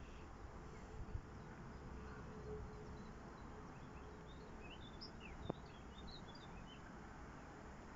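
Faint outdoor background with small birds chirping in short, quick high calls through the second half. A single sharp click about five and a half seconds in.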